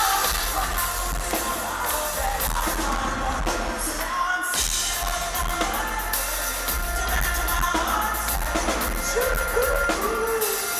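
Pop-rock band playing live, a male lead singer's voice over electric bass and drums, with a brief break in the music about four and a half seconds in.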